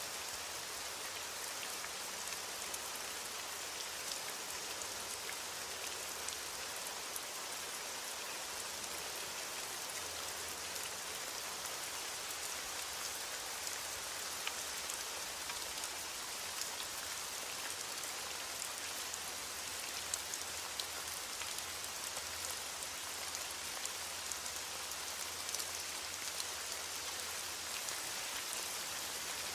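Steady rain falling, with the ticks of single drops heard through the even hiss.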